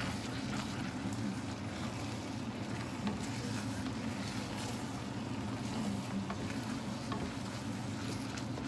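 A wooden spoon stirring thick risotto in a stainless steel pot, with soft scrapes and taps against the pot, over a steady low hum.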